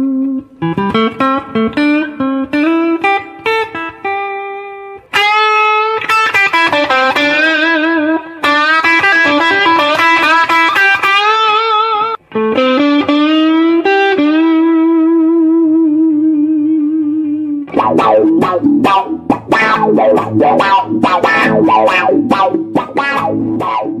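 Electric guitar played through a Vox amplifier: a single-note riff with bends, then long sustained lead notes with vibrato, and towards the end a fast rhythmic run of chopped, strummed chords.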